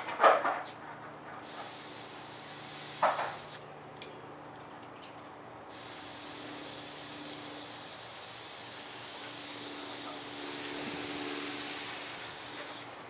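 Air hissing out of the valve stem of an inner tube inside a water-filled car tire as trapped air is bled off, in two bursts, about two seconds and then about seven seconds, each cutting off sharply. A knock at the very start.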